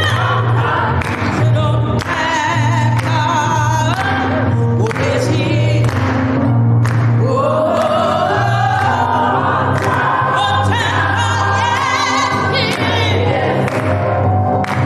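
Church choir singing a gospel song with accompaniment, hands clapping along.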